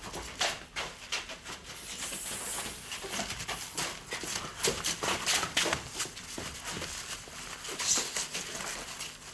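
Several people's hurried footsteps through undergrowth, a quick irregular run of steps with rustling of plants.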